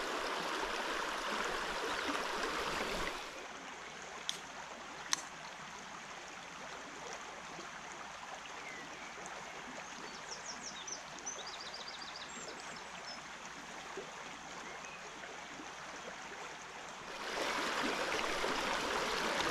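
Shallow river riffle running over stones, a steady rushing water noise that drops in level about three seconds in and comes back up near the end. Two sharp clicks about four and five seconds in, the second the loudest sound.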